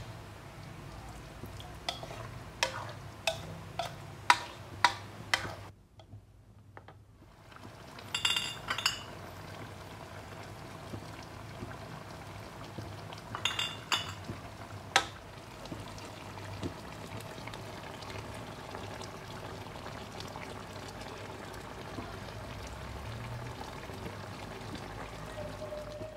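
Braised chicken and shiitake mushroom gravy simmering in a wok, with a metal ladle clinking against the wok as it is stirred. The clinks come in a quick run over the first five seconds, and again in small clusters about eight and fourteen seconds in, over steady bubbling; the sound drops almost to nothing for about a second around six seconds in.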